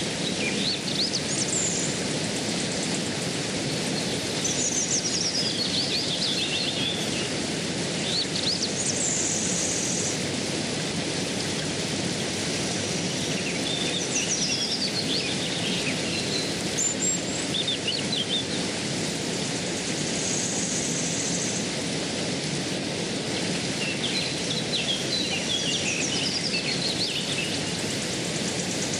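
Steady rushing of a flowing stream, with birds singing in repeated short phrases of sweeping and trilling notes every few seconds.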